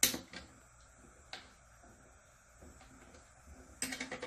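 Metal clicks and taps of a 14 mm wrench tightening a bolt on a solar panel end clamp: one sharp click at the start, a few fainter ones, and a quick run of clicks near the end.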